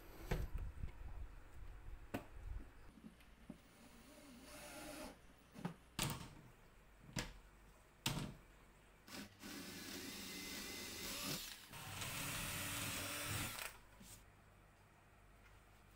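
Desk hardware and laminated board panels being handled: a run of sharp clicks and knocks, then two steady whirring stretches of a second or two each, about two-thirds of the way in.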